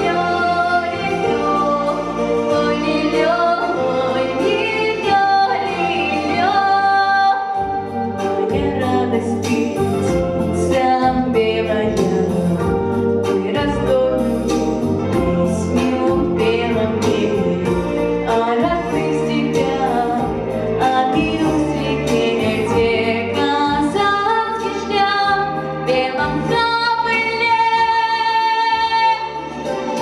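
A girl singing a slow song into a handheld microphone, amplified, with instrumental accompaniment under the voice.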